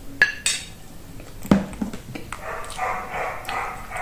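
A metal spoon clinks against a ceramic plate three times in the first two seconds. Through the second half, a dog barks in the background.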